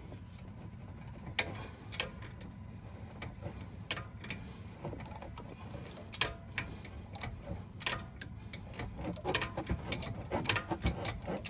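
Socket ratchet wrench clicking in irregular runs as it is worked back and forth to loosen an E-Torx caliper bracket bolt. The clicks come thicker near the end.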